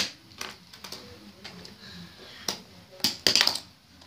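Tech Deck fingerboard clicking and clattering on a wooden floor as it is popped and lands: scattered single sharp clicks, then a quick cluster of clicks about three seconds in.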